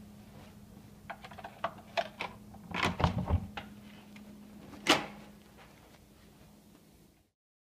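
Knocks and bangs over a steady low hum: a run of sharp knocks from about a second in, a heavier cluster around three seconds and a single loud bang near five seconds. Then the sound cuts off suddenly.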